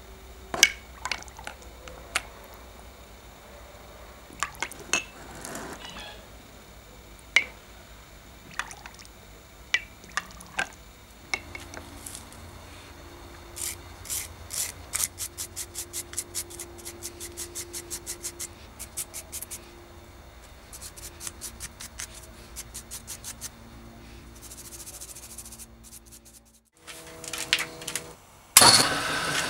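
Scattered drops of liquid dripping from a metal lighter case back into a glass jar. Then a long run of quick light clicks, about four or five a second. Near the end a bench buffing wheel's motor starts up and runs loudly.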